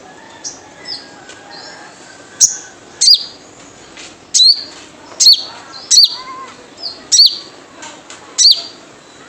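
Wild sogon (sogok ontong) giving its 'jrejet cuit' call. Softer chirps come first, then from a couple of seconds in a series of sharp, high chirps, each sweeping quickly downward, repeated roughly once a second.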